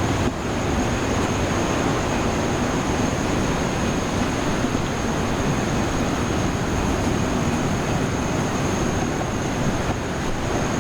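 Sea waves washing onto the shore in a steady, continuous surge, with a constant high-pitched insect drone above it.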